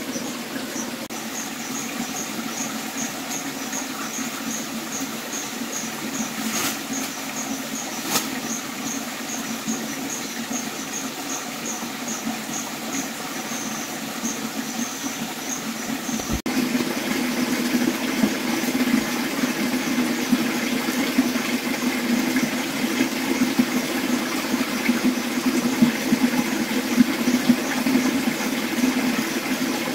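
Mountain stream running over rocks, a steady rushing, with a high chirp repeated about twice a second through the first half. About halfway through the water turns suddenly louder.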